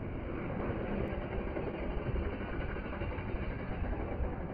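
Road traffic: scooter and motorbike engines running past on the street, a steady low rumble.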